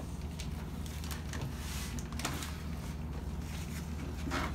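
Paper instant-oatmeal packets rustling and crinkling in hands, a scatter of short crackles, over a low steady hum.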